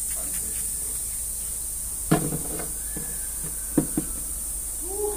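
A solid narra wooden door being handled: several sharp wooden knocks and clunks, one about two seconds in and two close together near four seconds, with a short creak near the end, over a steady high hiss.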